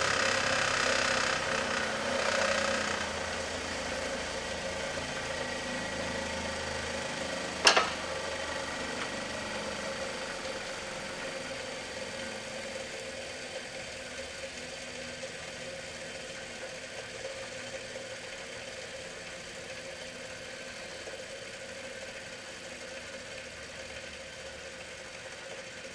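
A steady machine hum that slowly fades. There is rustling noise in the first few seconds and one sharp click about eight seconds in.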